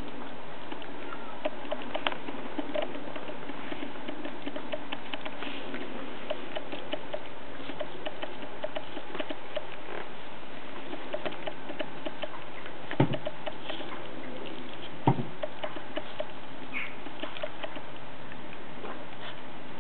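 A Groenendael puppy gnawing at a raw turkey leg: a steady run of small wet clicks and smacks from teeth working on meat and bone, with two louder knocks about two seconds apart past the middle.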